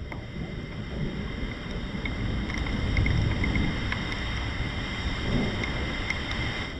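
Thunder rumbling, swelling to its loudest about halfway through, over steady heavy rain with scattered drip ticks.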